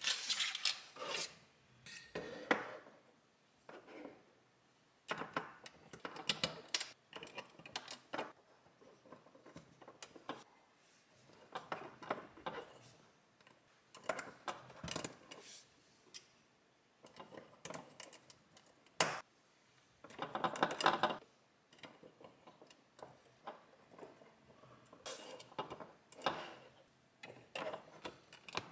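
Plastic LEGO bricks being handled and pressed together: irregular clicks, snaps and small clatters that come in clusters every second or two, with short quiet gaps between them.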